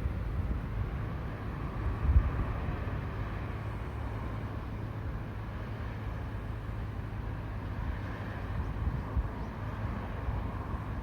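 Road traffic passing on a roadside highway, a steady tyre-and-engine hiss that swells as a vehicle goes by about eight seconds in, with wind rumbling and buffeting on the microphone.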